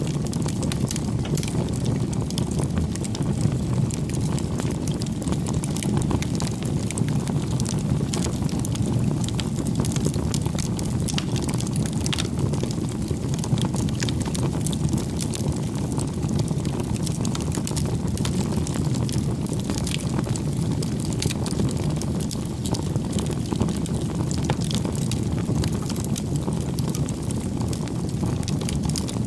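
Campfire burning: a steady low rush of the flames with scattered crackles and pops of burning wood.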